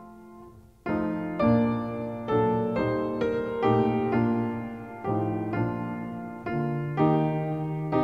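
Background piano music, a slow carol: after a brief pause the piano comes back in about a second in, with notes struck roughly twice a second.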